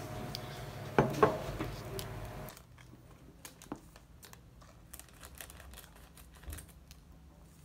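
Two sharp knocks about a second in, then the foil wrapper of an instant coffee sachet crinkling with many small crackles and clicks as it is handled and opened.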